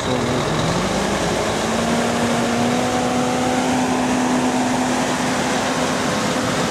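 Volvo semi tractor's diesel engine pulling the loaded boat trailer past at low speed. Its pitch rises over the first couple of seconds as it picks up, then holds steady.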